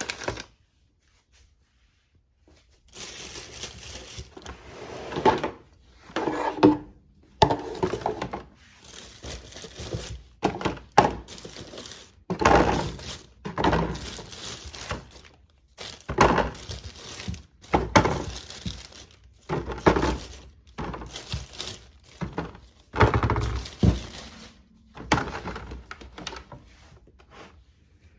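Packaging and groceries being handled: plastic crinkling and rustling, broken by irregular knocks of items set down or moved.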